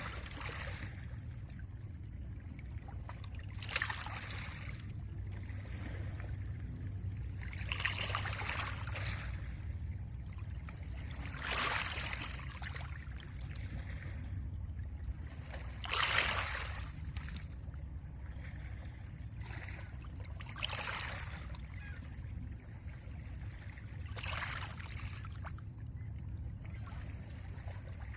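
Small lake waves breaking and washing over a pebble shore, a hissing surge roughly every four seconds, over a steady low rumble.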